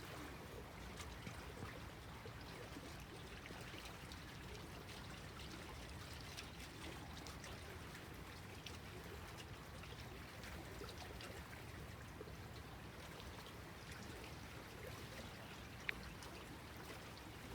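Small waves lapping gently at a lake shore: a faint, steady wash of water with small splashes throughout.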